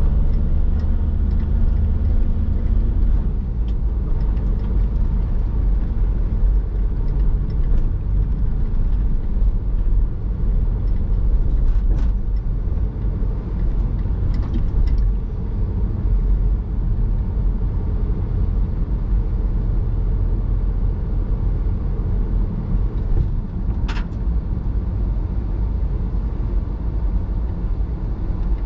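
Steady low road and engine rumble heard from inside a van's cab while driving slowly in traffic behind lorries, with a couple of short sharp clicks, one about twelve seconds in and another later on.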